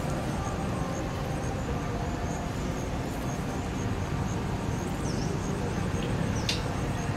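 Steady low rumble of outdoor background noise, with faint high chirps repeating about twice a second and a short sharp click near the end.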